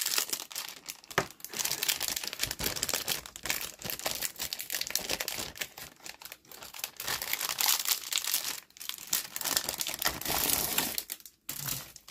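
Clear plastic kit bag crinkling and rustling as it is handled and the grey plastic sprues are taken out of it.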